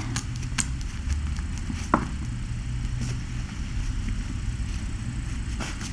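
A steady low rumble, with a few faint short clicks, about half a second and two seconds in.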